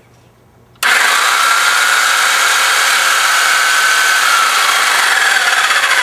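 Corded Chicago Electric reciprocating saw switched on about a second in and running free with nothing to cut, a loud, steady motor whine with the blade stroking in the air. This is a test run: the saw now runs after failing to start on the first try.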